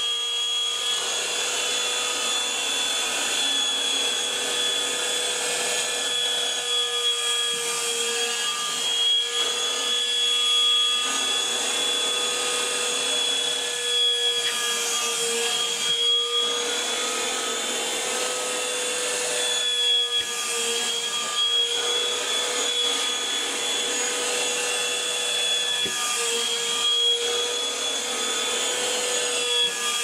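Small handheld vacuum cleaner running with a steady high whine over the rush of its airflow. The air noise dips and swells every few seconds as the nozzle is pressed onto and drawn across curtain fabric.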